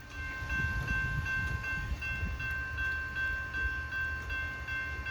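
Railroad grade-crossing bell ringing steadily at about two and a half strikes a second, over the low rumble of the approaching train.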